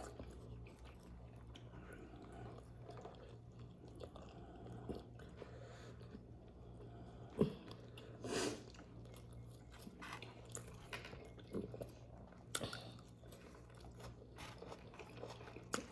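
Person chewing food close to the microphone: quiet, wet mouth sounds with scattered smacks, a few louder ones about halfway through, over a faint steady hum.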